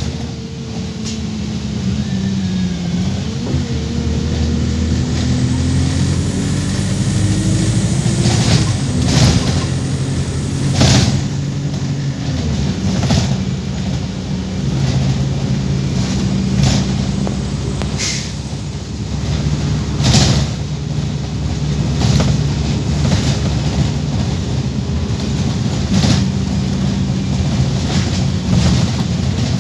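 Wright StreetLite Max micro-hybrid bus heard from inside the saloon as it drives, its engine and gearbox note dipping and then climbing over the first several seconds, with frequent sharp rattles and knocks from the bodywork. The gearbox is one the uploader calls very obviously dodgy and in urgent need of replacement.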